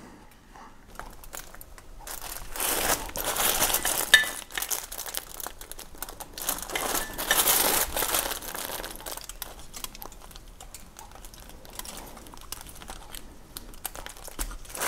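Crumpled aluminium foil crinkling under gloved hands as the wormcase housing is shifted on it, in two longer stretches. Small taps come from tools on the aluminium casing, with a light ringing metal clink about four seconds in.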